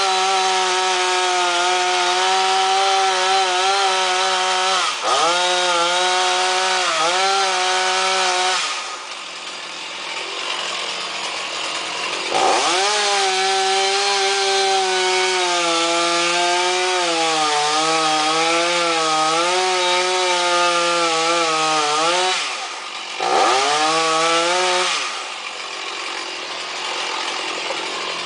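Two-stroke chainsaw running at high revs, cutting into a palm trunk, its pitch dipping now and then. It drops to idle for a few seconds about a third of the way through, revs and cuts again, then settles to idle near the end.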